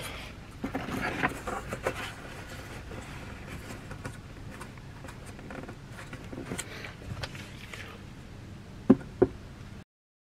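Black plastic heater air outlet being handled and pressed into a hole in a wooden cabinet panel: scattered rustling and light plastic knocks, then two sharp clicks close together about nine seconds in, after which the sound cuts off suddenly.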